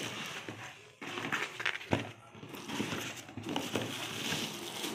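Clear plastic shoe wrapping crinkling and rustling as hands move plastic-bagged sports shoes about in their boxes, with a sharp tap about two seconds in.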